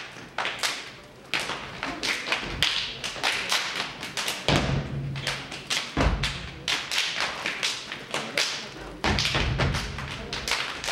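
Step team stepping in unison: a fast, dense rhythm of sharp foot stomps and hand claps and slaps on a wooden stage floor, with a few heavier, deeper stretches of stomping.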